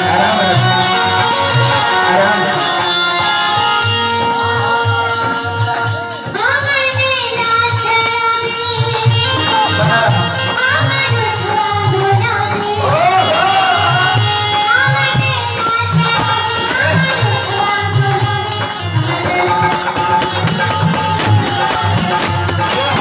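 Live Bhojpuri folk duet music: a keyboard holding long notes over a steady drum beat and a constant jingling percussion, with a singer's ornamented, wavering vocal lines coming in several times from about six seconds in.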